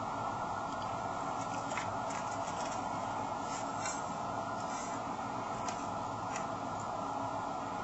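Steady hiss, with a few faint ticks in the middle.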